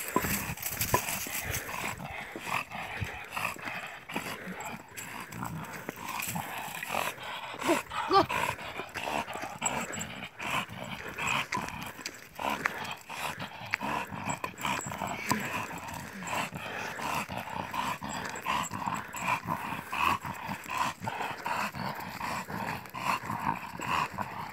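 Pit bull growling while gripping and tugging a wooden stick in its jaws, with many short clicks and scrapes mixed in.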